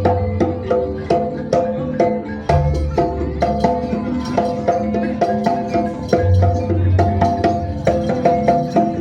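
Live gamelan music for a jaranan trance dance: a quick, steady run of hand-drum strokes and struck bronze notes, with a low gong note sounding about two and a half seconds in and again past six seconds.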